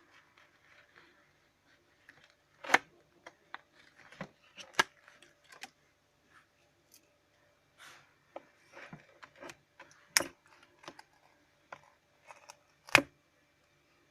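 Scattered small clicks and light taps of small tools and parts being handled, with four sharper, louder clicks about 3, 5, 10 and 13 seconds in.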